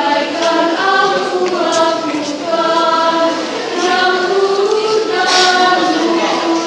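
A choir singing in parts, several voices holding notes together and moving to new chords about every half second to a second.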